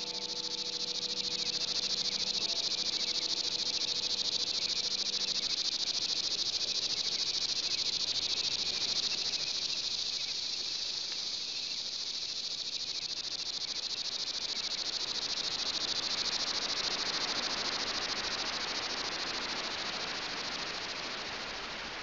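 Steady, dense chirring of a summer insect chorus. A held musical chord dies away about five seconds in, and a broader hiss rises in the last few seconds.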